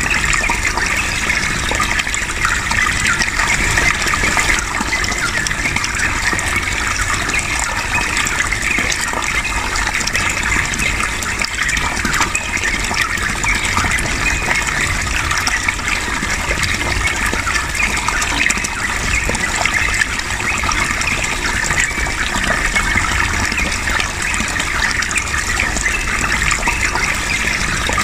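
Flowing water, a steady unbroken rush with dense fine splashing.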